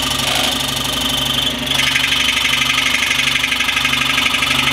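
Scroll saw running steadily with its blade set at 90 degrees, sawing a straight kerf through a wooden board. The sound dips briefly about a second and a half in.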